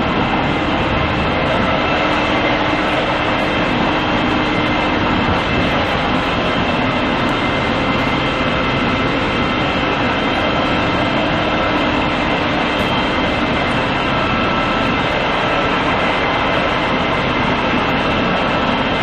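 Steady, loud machine drone with several held tones running under it, without a break.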